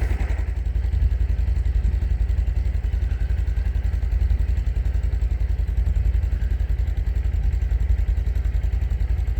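Snowmobile engine idling steadily with an even, rapid low pulse.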